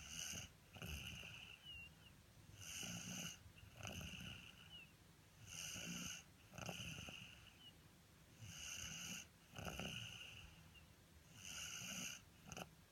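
Snoring, in slow regular breaths: two sounds per breath, in and out, repeating about every three seconds.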